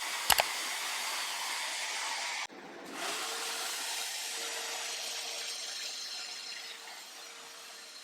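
Handheld hair dryer blowing with a steady rush of air, with a couple of clicks just after it starts. It drops out briefly about two and a half seconds in, then runs again with a steady motor hum under the airflow, getting a little quieter near the end.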